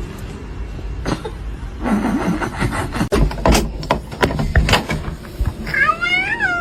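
Low rumbling with scattered knocks and clatter, then a domestic cat meows once near the end, its pitch rising and then falling.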